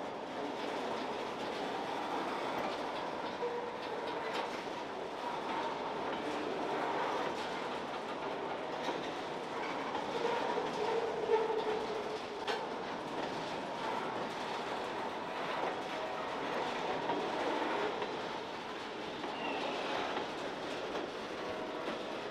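Covered hopper cars of a freight train rolling past: a steady rumble and clatter of wheels on rail, with a few sharp clicks over rail joints and the track creaking under the cars.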